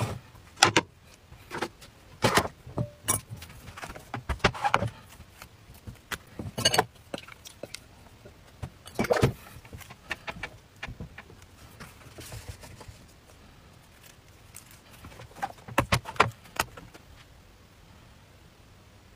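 Hands handling food on a wooden board and an electric crepe pan: short taps, clicks and soft rustles at irregular intervals as sausage slices are picked up and laid down and a thin crepe sheet is lifted.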